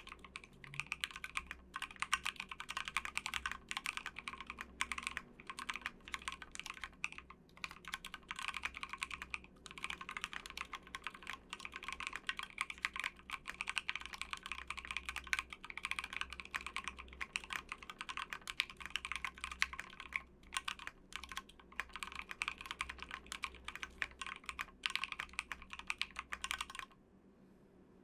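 Continuous fast typing on a Tofu60 mechanical keyboard with Gateron North Pole switches, a dense run of keystroke clacks that stops abruptly about a second before the end.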